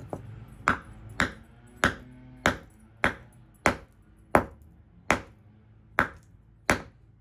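A hand hammer striking a chunk of dolomite rock held on a concrete floor: about ten sharp, ringing hits, roughly one every two-thirds of a second, the spacing widening slightly near the end. These are light taps meant to split the rock open to reach its Herkimer diamond crystal pockets.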